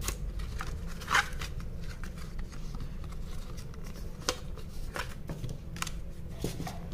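Hands handling a phone's cardboard retail box and inner packaging: a scattering of short scrapes, rustles and taps, the loudest about a second in, over a steady low hum.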